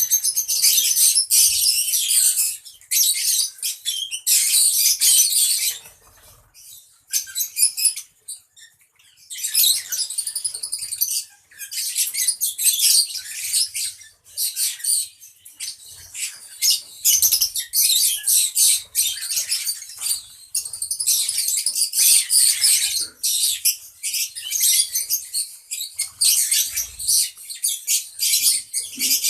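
A group of lovebirds chattering: dense, rapid, high-pitched chirping in bursts, with a lull of a few seconds about six seconds in.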